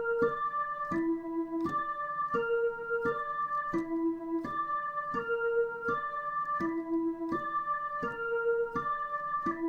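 Dutch ambulance siren sounding as a broken chord: steady electronic tones step through the notes of a chord instead of sounding together. A new figure starts about every 0.7 seconds, its lowest note alternating between two pitches, and the pattern repeats without a break.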